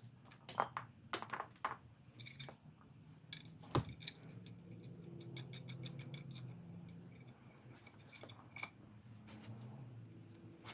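A run of sharp, irregular clicks and light clinks of small hard objects being handled, over a faint low hum that swells in the middle.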